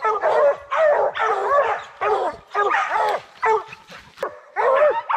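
Several bear hounds barking and bawling at a tree with the bear up it, their calls overlapping in quick runs, with a short lull about four seconds in.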